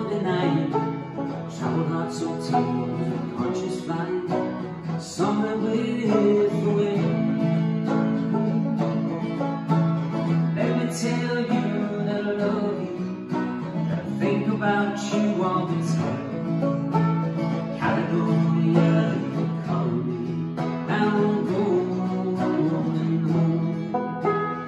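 Acoustic guitar and banjo playing a folk tune together, the guitar strummed and the banjo picked.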